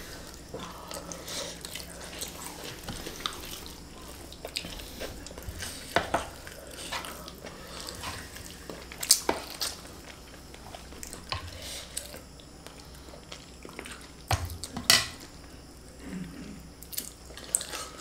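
Eating sounds: plastic spoons scraping and clicking against a metal tray of fried kuey teow, with quiet chewing. There are a few separate sharp clicks scattered through an otherwise soft stretch.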